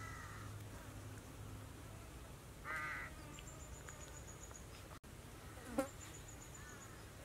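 Faint outdoor animal sounds: a short buzzing call about a third of the way in, a high rapid ticking trill twice, and a sharp falling call a little past the middle.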